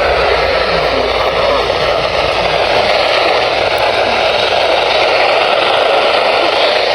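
Radio static: a steady, even hiss of noise from a weather radio receiver that is picking up no clear signal.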